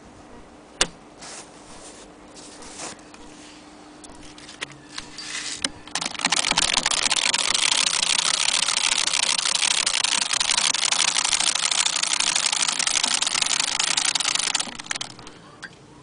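Antique Maxfield Agenoria sewing machine running and stitching steadily for about eight seconds, a dense rapid mechanical clatter that starts about six seconds in and stops near the end. Before it come a few scattered clicks, one sharp and loud about a second in.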